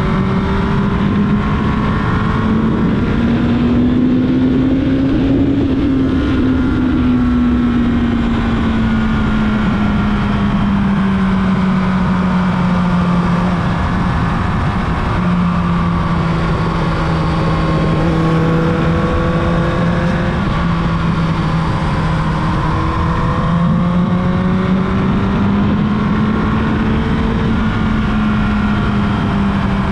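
Carbureted Yamaha YZF-R1's inline-four engine running under way at steady mid revs, its note slowly rising and falling, with a short dip a little before halfway, over a constant rush of wind.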